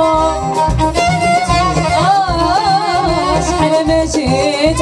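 Moroccan chaabi band playing live between sung lines: a melody with wide vibrato over bass and a steady beat.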